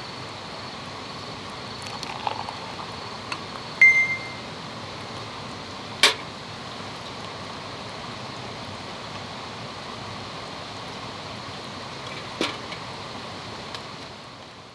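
A steady background hum with a few sharp knocks and clinks; one clink about four seconds in rings briefly with a clear tone. The sound fades out at the end.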